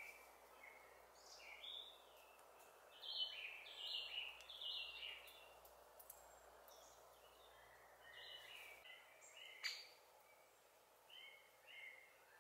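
Faint woodland birdsong: short phrases of high notes repeated over and over, loudest about three to five seconds in, with a single sharp click a little before ten seconds.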